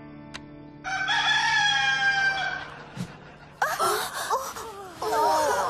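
Rooster crowing: one long held crow about a second in, then a run of wavering calls from a little past halfway. A low held note fades out under the start.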